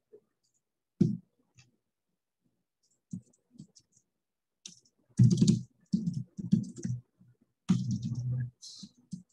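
Typing on a computer keyboard: a lone keystroke about a second in and a few scattered ones, then quick runs of key presses through the second half.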